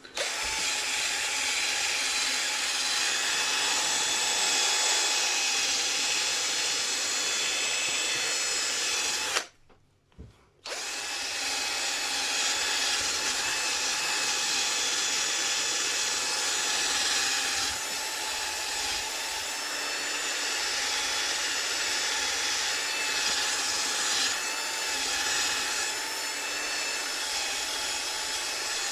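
Electric power tool spinning a polishing pad, buffing a guitar's lacquer finish with compound on a first, coarse pass. The motor runs steadily with a whine, stops for about a second around ten seconds in, then starts again and runs on.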